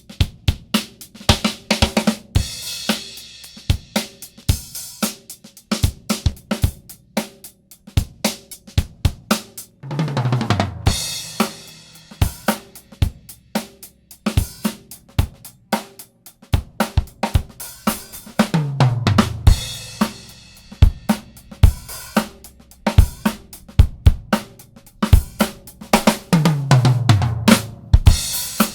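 Drum kit playing a steady groove of kick, snare and hi-hat. Roughly every eight seconds a fill falls in pitch down the toms and lands on a cymbal crash.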